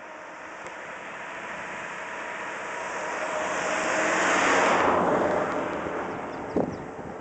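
A motor vehicle passing by. Its noise swells to a peak about four and a half seconds in, then its pitch drops as it moves away. A short knock comes near the end.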